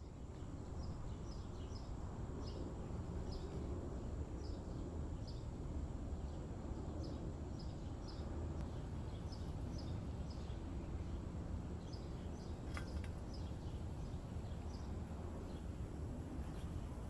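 Outdoor ambience: a steady low background rumble with small birds chirping over and over in short calls. There is one brief tick about three quarters of the way through.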